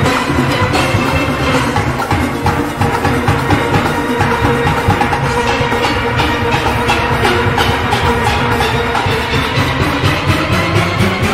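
A steel orchestra playing: massed steelpans carrying the melody and chords over a rhythm section of drums and percussion keeping a steady beat.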